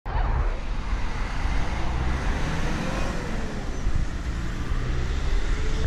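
Road traffic passing on a multi-lane road: a steady rumble of cars, with a faint engine tone that rises and falls.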